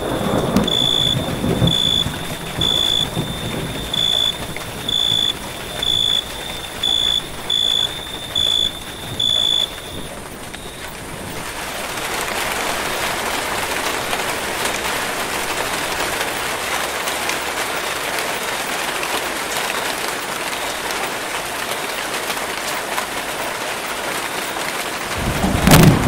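Rain falling on forest foliage, lighter at first and heavier and steady from about eleven seconds in. A thunder rumble dies away in the first two seconds and another begins just before the end. Over the first ten seconds a high, even-pitched beep repeats about once a second, nine times.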